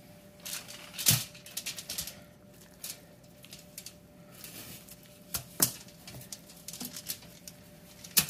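Aluminium foil crackling and crinkling under gloved hands as a raw Cornish hen is picked up, turned and pressed down on it, in scattered sharp crackles, the loudest about a second in and near the end. A faint steady tone hums underneath.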